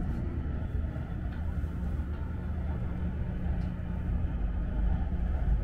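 Seoul subway train running: a steady low rumble that grows louder near the end.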